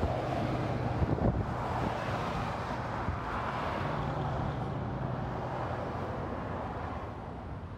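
Road vehicle noise: a car's tyre and engine sound swelling and then fading, with a little wind on the microphone.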